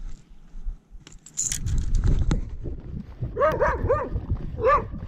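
A dog barking in short, high yips: three in quick succession about three and a half seconds in, then one more, over low rumbling and rustling handling noise.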